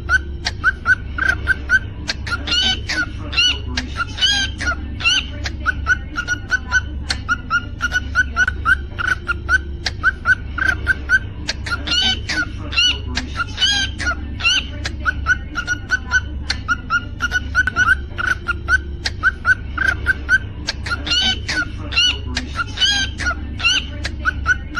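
Cockatiel chirping and whistling: a steady run of quick, short chirps, broken three times by louder whistled phrases that slide up and down, over a steady low hum.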